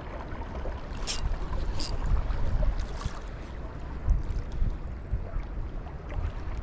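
Wind buffeting the microphone, a steady low rumble, with two brief high hisses about one and two seconds in.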